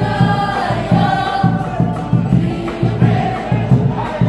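Group of young voices singing a Cook Islands song together, over strummed ukulele-type strings and a drum keeping a steady, quick beat.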